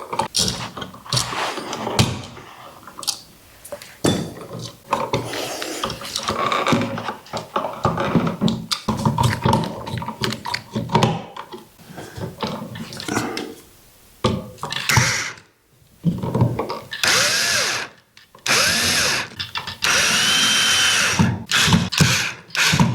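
Power drill-driver running in several short runs, driving the mounting screws that hold an electrical outlet in its box, with clicks and clatter of handling in between.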